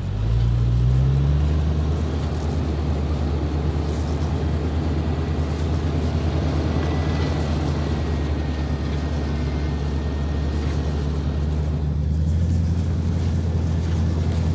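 Jeep Wrangler LJ engine revving up, then pulling steadily under load while towing a 2,000-pound trailer up a snowy, icy hill.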